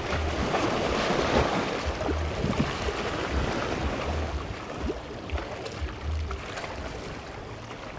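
Small waves washing and lapping over shallow rocks along the shore, an even rushing hiss, with gusts of wind buffeting the microphone as low rumbles every second or so.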